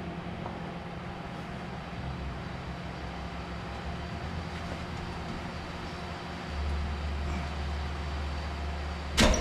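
A steady low mechanical hum, joined by a deeper drone about six and a half seconds in, then a single sharp knock near the end.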